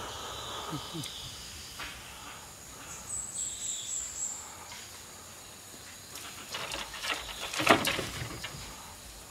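Steady high-pitched buzzing of rainforest insects, with a higher buzz joining for a second or so a few seconds in. A short, loud, harsh sound breaks in about three quarters of the way through.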